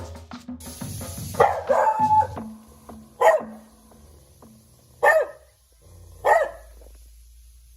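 Dog barking: a longer, rougher bark about a second and a half in, then three single sharp barks spaced a second or two apart.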